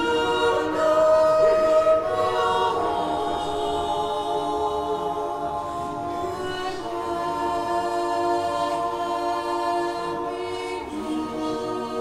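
Slow choral music on the soundtrack: voices holding long chords that change every few seconds.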